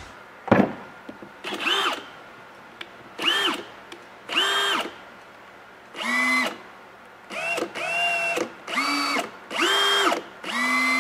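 A battery clicks onto a Ryobi HP 18V brushless high-torque impact wrench, then the wrench is run in about eight short trigger pulls at varying speeds. Each is a brief motor whine that spins up and down, spinning freely without load, so there is no hammering, as it is test-run after being reassembled.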